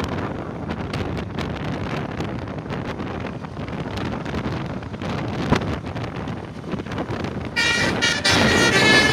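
Noisy background with scattered knocks. About seven and a half seconds in, a tour bus's telolet basuri musical horn starts up loudly, several pitched tones sounding together.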